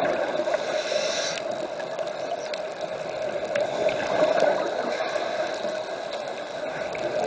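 Underwater ambience picked up by a camera in a dive housing: a steady muffled rush of water noise, with a few faint clicks scattered through it.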